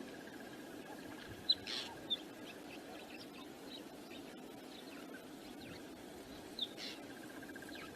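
Wind rushing steadily over an outdoor microphone, with a few short, high bird chirps in two brief clusters, one near the start and one near the end. A faint, steady trill runs underneath.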